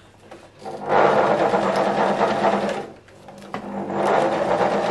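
Electric sewing machine running in two bursts of rapid stitching through fabric, each about two seconds long, with a short stop between them.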